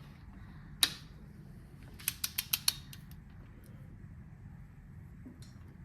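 Torque wrench on a cylinder head bolt: one sharp click about a second in, then a quick run of about five ratchet clicks, as the bolt is tightened to 22 foot-pounds.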